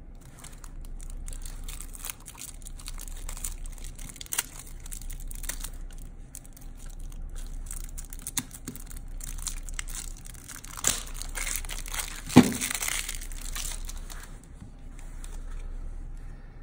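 Stack of Magic: The Gathering cards handled and flipped through, a continual papery rustle and slide with scattered sharp card snaps. A louder knock about twelve seconds in.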